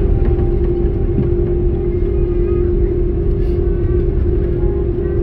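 Airbus A330-200 cabin noise while taxiing: the jet engines' steady drone with a constant hum tone over a low rumble from the airframe rolling on the taxiway.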